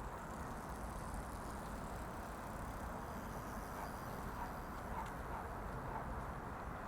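Steady hum of distant road traffic: a continuous, even rumble with no single passing vehicle standing out.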